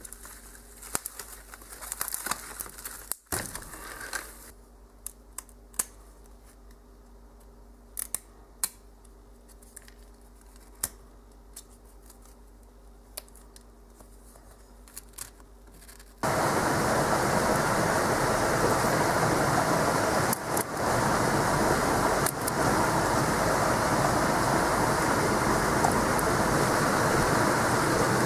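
Scattered sharp clicks and light rustles as the barbs are stripped by hand from a feather shaft to make a quill. About sixteen seconds in, a sudden loud, steady rushing noise takes over.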